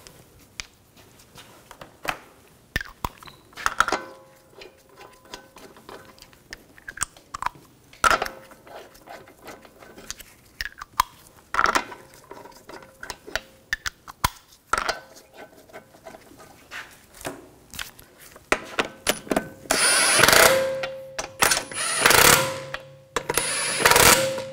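Scattered metallic clicks and taps as lug bolts are threaded in by hand on an alloy wheel. About twenty seconds in, a cordless power tool with a socket runs in several short bursts, spinning the lug bolts down snug.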